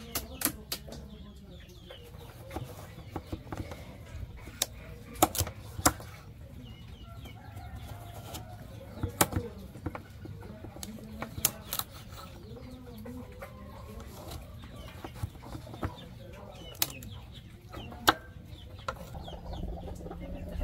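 Chickens clucking with scattered irregular sharp knocks and clicks.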